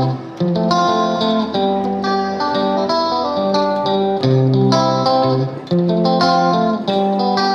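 Background music led by plucked guitar notes.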